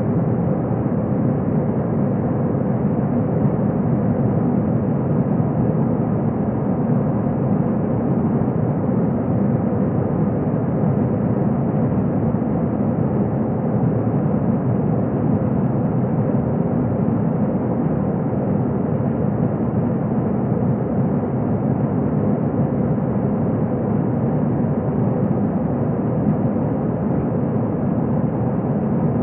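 Steady engine and airflow noise inside the cabin of an airborne Airbus A321, an even rush with a faint steady hum in it.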